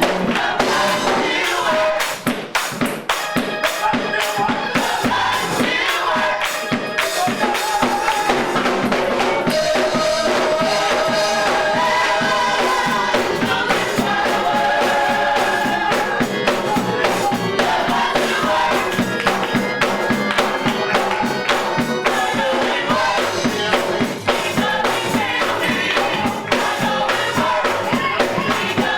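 Gospel choir singing with a band, tambourine and drums keeping the beat.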